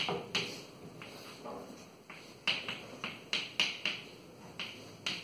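Chalk striking and scraping on a chalkboard while words are written by hand, in a series of short, irregular strokes and taps.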